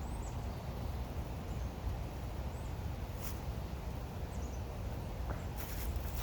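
Outdoor ambience: a steady low rumble of wind on the microphone, with a few faint, short, high bird chirps and a couple of rustling footsteps near the end.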